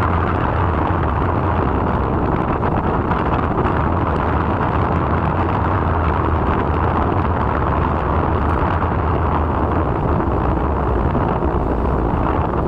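Motorcycle running at a steady cruising speed, with wind rushing over the microphone.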